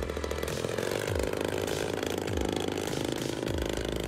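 Engine of a 40% scale L4 Grasshopper radio-controlled model plane running steadily as the plane flies past overhead.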